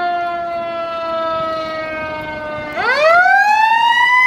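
Fire engine siren wailing: its pitch sinks slowly, then nearly three seconds in it climbs quickly back up and gets louder.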